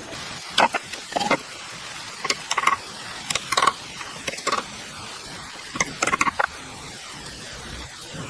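Irregular clusters of sharp clicks and knocks, a few every second or two, over a steady low hiss.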